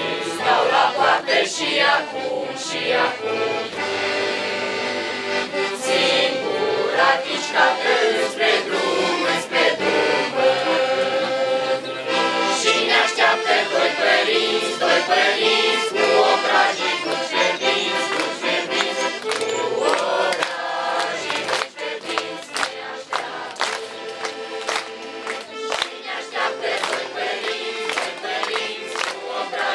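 A group of voices singing a song together over an instrumental accompaniment that holds long steady notes.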